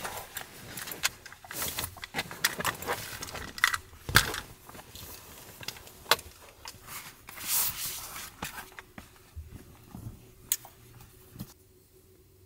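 Handling noise as cloth drawstring bags are filled with headphones, a charger and cables: fabric rustling with irregular small clicks and knocks, dying away near the end.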